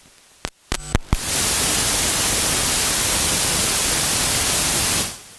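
Electronic static: a steady, loud white-noise hiss in the audio feed. It comes in about a second in, after a few sharp clicks, and cuts off abruptly near the end.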